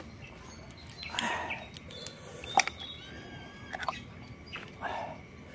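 Close-up eating of grilled oysters: hard shells click and tap against each other and the bowl several times, with two short wet slurps about a second in and near the end.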